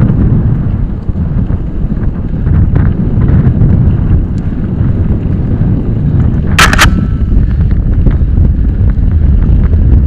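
Wind buffeting the microphone and the rumble of a mountain bike riding fast over a dirt forest trail, with scattered small rattles. A single sharp clack about two-thirds of the way through.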